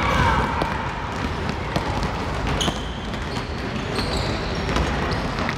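Many basketballs dribbled at once by children on a gym floor: a dense, irregular patter of overlapping bounces.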